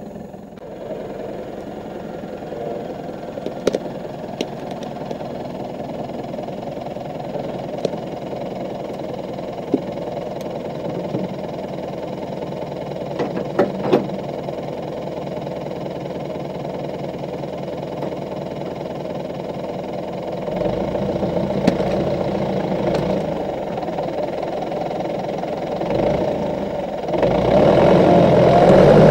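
Zetor tractor's diesel engine running close by, with a few sharp knocks and clanks in the first half. It gets clearly louder about 27 seconds in.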